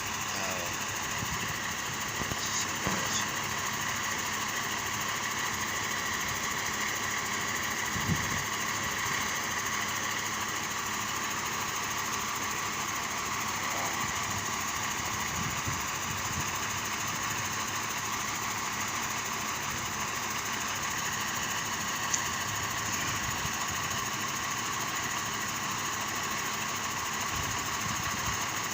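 Fire truck engine running steadily, with an occasional sharp click.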